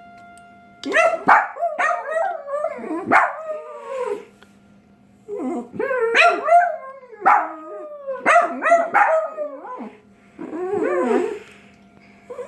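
Dog howling in a run of short, wavering howls and bark-like yips whose pitch slides up and down, pausing briefly about four seconds in and again near ten seconds.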